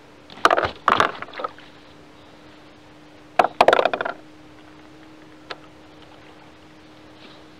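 Two short clusters of knocks and clatter on a plastic fishing kayak's deck as a fish and gear are handled, about half a second in and again at three and a half seconds, over a faint steady hum.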